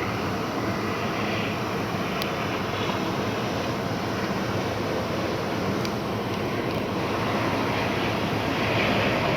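Airliner engine noise from an aircraft on approach to land: a steady jet rush that grows a little louder near the end.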